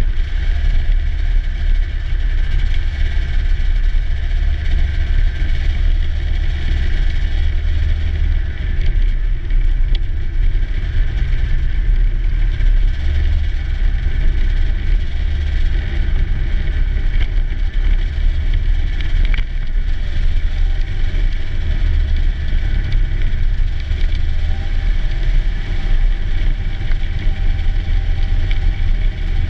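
Snowmobile engine running steadily while under way, heard from on board with a heavy low rumble that does not let up.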